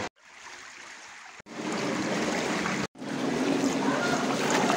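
Shallow stream of water running over pebbles, cut off abruptly twice and coming back louder after each cut.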